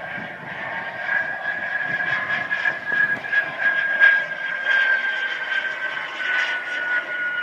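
Model J-10 jets' turbine engines whining in flight: one steady high tone over a rushing hiss, dropping slightly in pitch near the end.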